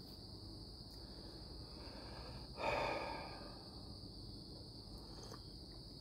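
Crickets chirping in a steady high chorus. About two and a half seconds in, a man lets out one long sigh that fades over about a second.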